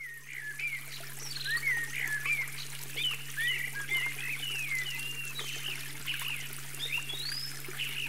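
Shallow water trickling and running over a road ford, with small birds singing many quick chirps and whistled notes above a steady low hum.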